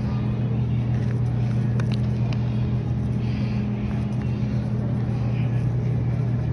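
Wire shopping cart rolling across a supermarket floor: a steady low hum and rumble, with a few faint clicks and rattles about two seconds in.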